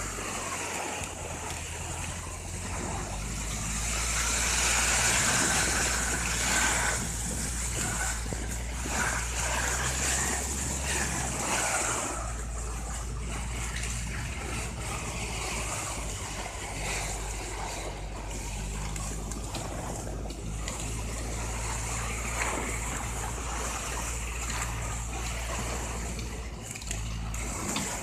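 A big bag sliding over snow as a tractor tows it: a rushing hiss of fabric on snow over the steady low drone of the tractor's engine. The hiss swells louder from about four to twelve seconds in.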